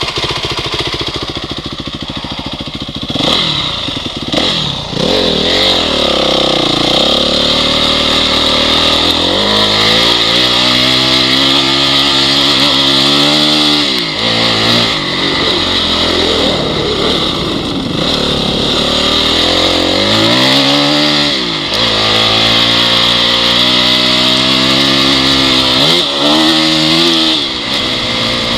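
Honda CRF single-cylinder four-stroke dirt bike engine running under way. Its revs drop and climb again several times as the throttle is rolled off and back on.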